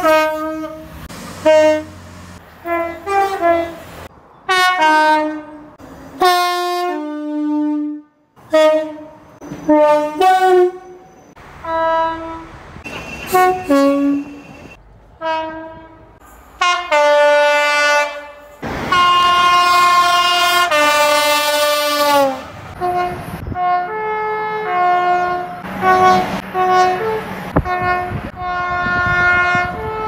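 A quick succession of short two-tone horn blasts from different British trains, one clip cut straight into the next. About two-thirds through, one horn is held for several seconds over the rush of a passing train, its notes sliding down in pitch as it ends.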